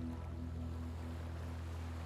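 Soft background music of long held low notes, with a gently pulsing higher note, over the steady wash of sea waves.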